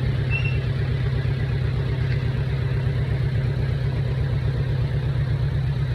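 Diesel engine of heavy construction machinery, a bulldozer or excavator, running steadily with an even, rapid low pulse.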